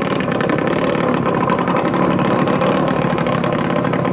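Small air-cooled engines of BT9-class racing speedboats running steadily, with a dense, rapid firing.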